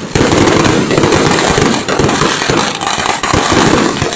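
Fireworks going off in a dense, rapid crackle of many small bangs.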